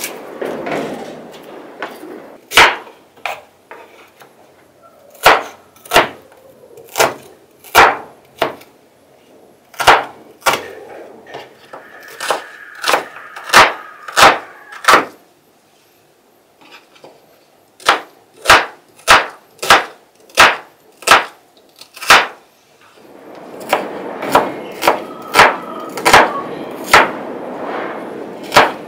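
Kitchen knife chopping an onion on a wooden cutting board: sharp knocks of the blade striking the board in uneven runs, with a short pause about halfway through.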